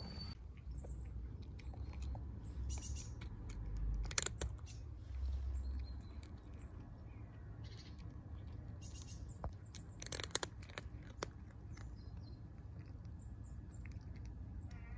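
Cat crunching dry kibble, with scattered crisp crunches, a few louder ones about four and ten seconds in. A low rumble runs under the first few seconds.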